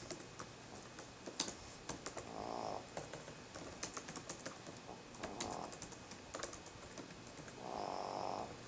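A sleeping dog snoring, three slow snoring breaths about three seconds apart, the last one the longest and loudest. Many light, sharp clicks run through it.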